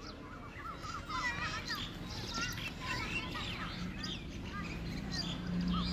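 Small birds chirping in quick, repeated calls, with a low steady hum coming in near the end.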